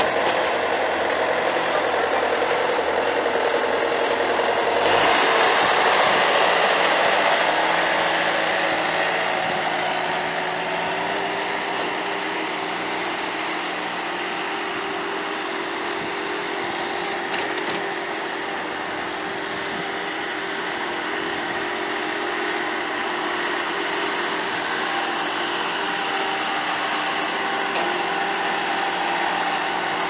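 Bobcat S250 skid steer's Kubota V3300 four-cylinder turbo diesel engine running. About five seconds in it gets louder for a few seconds, then eases back to a steady run.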